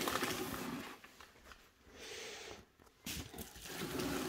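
Bubble wrap rustling and crinkling as it is handled, in a few short stretches with brief pauses between.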